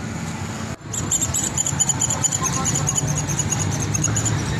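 A rapid run of short high-pitched chirps, several a second, over steady low street background noise. The sound drops out for an instant just before the chirping starts.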